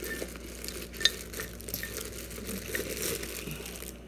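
Clear plastic wrapping rustling and crinkling as it is handled, with light scattered clicks and a sharper click about a second in.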